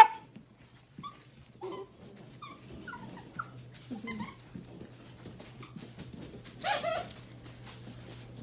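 Young doodle puppies whimpering and squeaking: scattered short, faint high cries, with one louder cry about six and a half seconds in.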